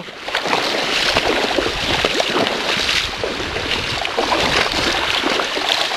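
River water rushing and splashing close by, a dense, steady wash broken by many short irregular splashes.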